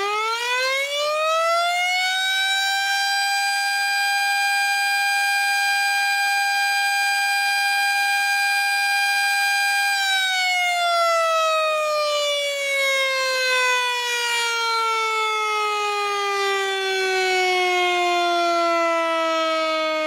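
Tornado warning siren winding up to a steady wail over the first few seconds and holding one pitch. About halfway through it starts winding down in a long, slowly falling tone.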